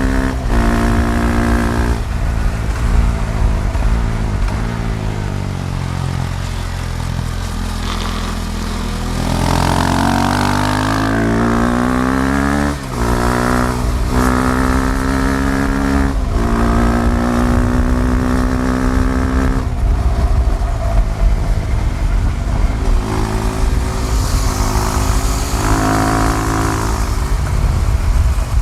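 KTM Duke 390's single-cylinder engine heard on board while riding, revs rising and falling through the gears. There is a long climb in revs about a third of the way in, ending in a quick shift, and several other abrupt breaks in pitch from gear changes. A low wind rumble runs underneath.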